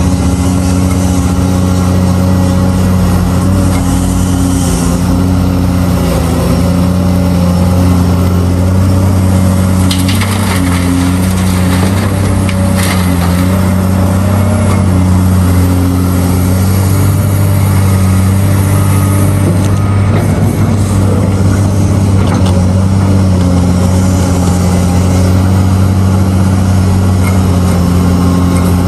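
Caterpillar 385C hydraulic excavator working in rock: its diesel engine runs with a steady drone that rises and falls slightly with load, over crunching and scraping of rock and dirt in the bucket. A few sharper rock knocks come about ten and thirteen seconds in.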